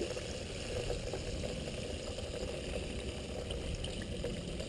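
Chicken drumsticks deep-frying in hot oil in a cast-iron pot, the oil bubbling and sizzling steadily with faint small crackles.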